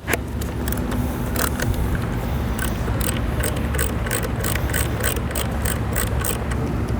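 Irregular metallic clicks and light scrapes of a long 5 mm Allen key working the bolts inside a motorcycle airbox, over a steady low hum.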